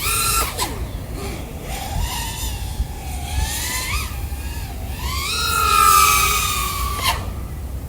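EMAX Babyhawk O3 3.5-inch FPV quad with ECO 1404 3700KV motors, its motors and props whining, the pitch rising and falling with the throttle. About five seconds in the whine climbs to a loud, high, held note, then cuts off sharply near the end.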